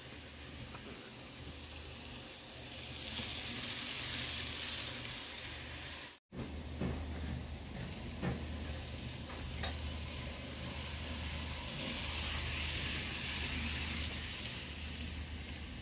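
N-scale model steam locomotive running on sectional track out of view: a steady hiss over a low hum that swells and fades twice, with a few faint clicks.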